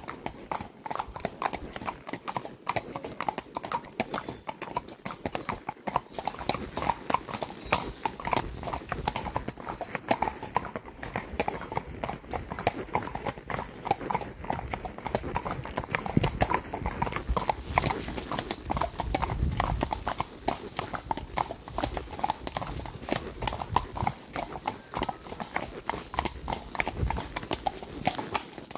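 Hooves of several horses walking on a wet asphalt road, a continuous run of clip-clops.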